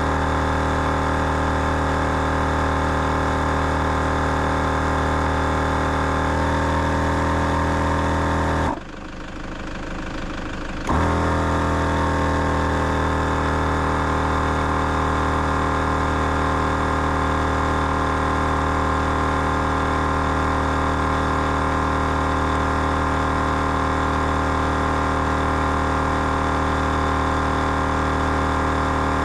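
Twin-head air compressor running steadily under load, inflating four tyres at once. About nine seconds in it drops in level and goes dull for about two seconds, then resumes.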